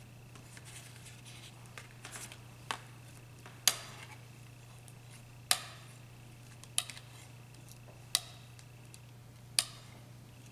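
Metal spatula mixing cream on a glass ointment slab: faint scraping, then five sharp clicks about a second and a half apart as the blade strikes the slab, over a steady low hum.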